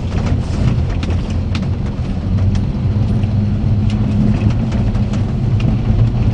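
Daihatsu Hijet mini-truck's 660cc three-cylinder engine running as the truck drives on a gravel track, heard from inside the cab as a steady low drone. Frequent light clicks and rattles sound over it.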